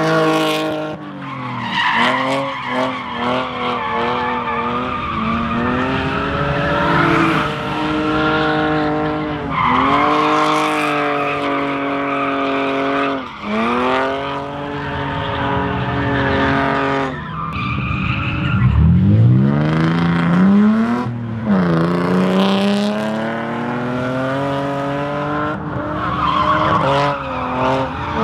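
BMW E46 drift car's engine revving hard and repeatedly as it drifts, pitch climbing and dropping every few seconds, over tyre squeal and skid noise. A little past the middle the engine falls very low and then revs sharply back up.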